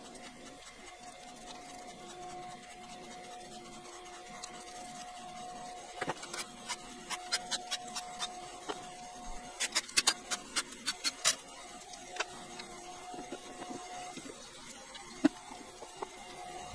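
Metal clinks and clicks from hand tools and engine parts being handled during an engine teardown: a scattered run of sharp clicks, thickest about two-thirds of the way through, then a single louder clink. A steady hum continues underneath.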